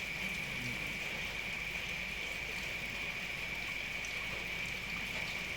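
Steady rain falling: an even hiss, with a constant high-pitched tone running through it.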